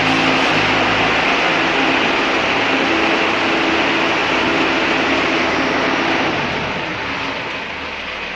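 Underground mining loader (LHD scooptram) running, a steady engine and machine noise that eases down a little near the end.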